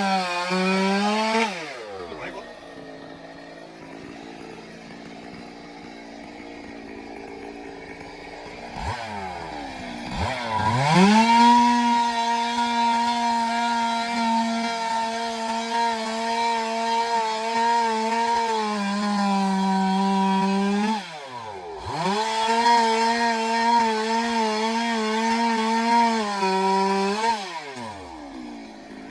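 Stihl two-stroke chainsaw cutting timber. It runs at full throttle briefly, drops to idle for several seconds, then revs up for a steady cut of about ten seconds, dips for a moment, cuts again for about five seconds, and drops back to idle near the end.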